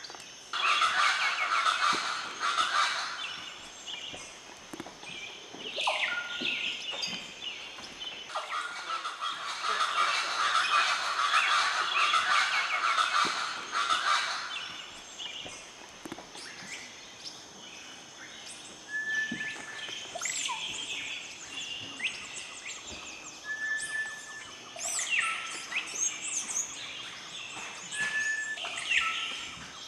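Wild birds calling in Amazonian forest: two long bouts of dense, loud chattering twitters, then scattered short whistled notes and twitters, over a faint steady high-pitched hum.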